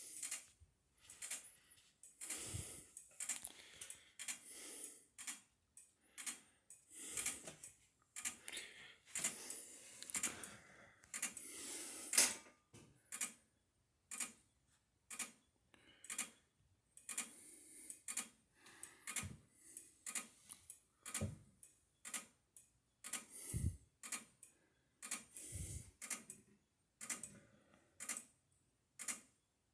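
A faint, steady tick about once a second, with soft handling clatter over the first dozen seconds and a sharper click about twelve seconds in, during the reset of a manual fire alarm pull station.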